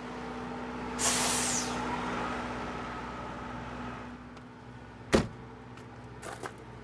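A vehicle's engine running steadily, with a short hissing whoosh about a second in and a single sharp knock about five seconds in, followed by a few faint clicks.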